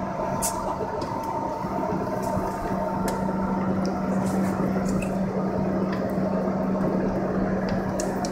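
R62A subway car standing at the platform, its onboard equipment giving off a steady hum with one strong low tone and a fainter higher tone, and a few faint ticks scattered through it.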